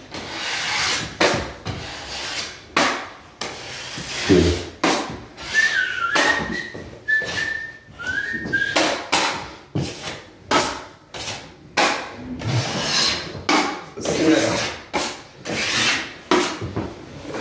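Sandpaper rubbed by hand across a painted drywall patch: irregular rasping strokes, roughly one a second. A few short whistled notes come in the middle, some sliding up in pitch.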